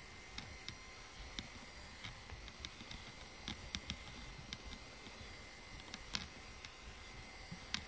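Faint, irregular small clicks and soft rustling as a rubber grooming brush is stroked through a cat's fur, brushing out shed hair.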